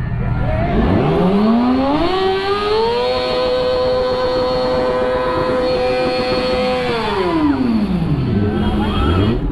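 Kawasaki Ninja ZX-6R's inline-four engine revving hard for a burnout: the revs climb from about a second in, are held high and steady for about four seconds while the rear tyre spins, then drop back toward idle near the end.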